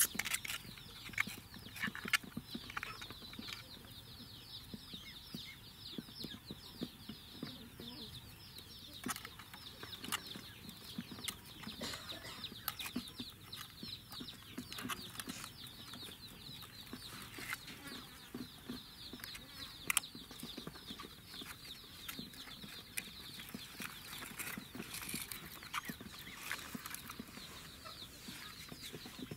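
Chicks peeping continuously, a dense run of short, quick, falling cheeps, with scattered clicks and rustles from a plastic mesh net being handled.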